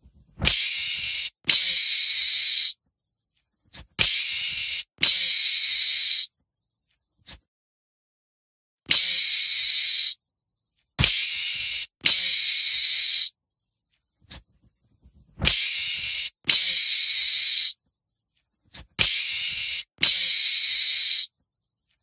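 Meerkat hissing: a series of loud, harsh hisses about a second each, mostly in close pairs, repeating every three to four seconds.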